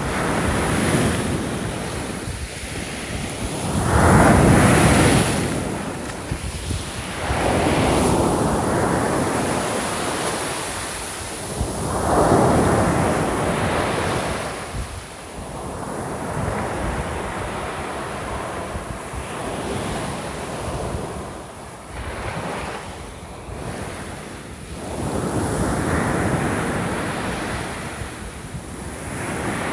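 Small waves breaking on a shore and washing back, one swell every few seconds, the strongest about four seconds in and twelve seconds in. Wind buffets the microphone throughout.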